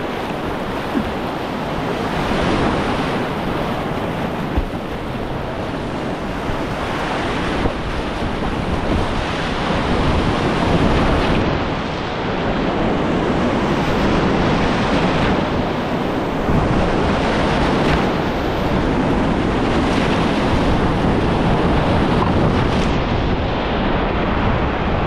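Whitewater rapids rushing and churning steadily around a kayak running through them, with wind buffeting the microphone.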